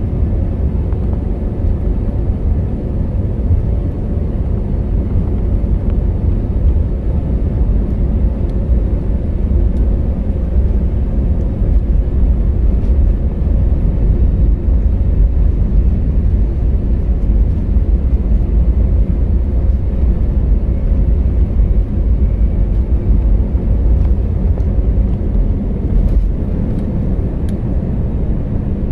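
Airbus A321 airliner's jet engines and rolling wheels heard from inside the cabin during the takeoff roll: a steady, deep rumble that grows a little louder partway through.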